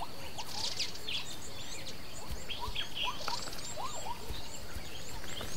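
Savanna ambience: many wild birds chirping and calling in short, quick notes, over a steady high buzz.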